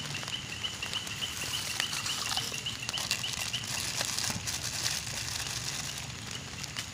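Faint swishing and splashing of hands in a bucket of water as coarse salt is worked in. Over it runs a steady high chirping, about four chirps a second.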